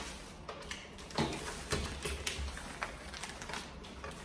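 Plastic shopping bag rustling, with scattered light knocks and taps as items are handled and set down.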